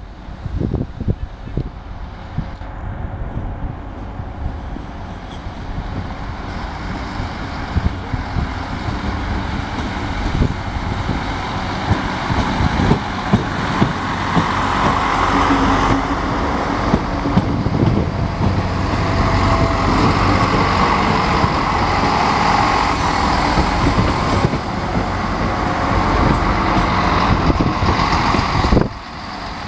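SNCF X 73500 diesel railcars (TER) running past close by on the adjacent track: engine and wheel-on-rail noise that builds steadily as the train approaches and passes, then drops sharply near the end.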